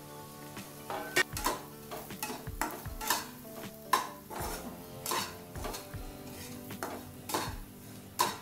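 A metal spatula stirring and scraping semolina in ghee around a kadai as the rava is roasted on low heat, with sharp clinks against the pan about once a second.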